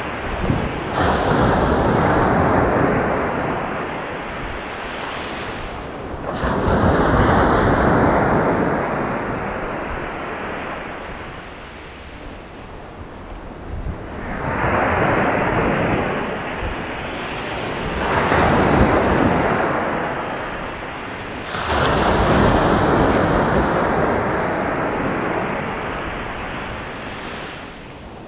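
Sea waves breaking on a sandy beach: five crashes of surf, each a swell of rushing noise that fades slowly as the water washes back up the shore before the next wave breaks.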